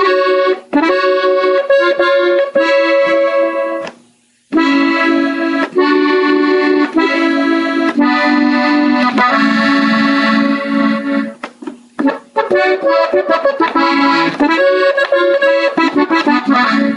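Gabbanelli button accordion playing a slow melodic phrase on the treble buttons, one note after another. It breaks off briefly about four seconds in and again near twelve seconds, then goes into a quicker run of shorter notes.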